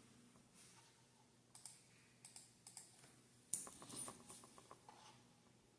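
Faint keyboard typing and clicking: scattered single key clicks, then a quick run of keystrokes about halfway through.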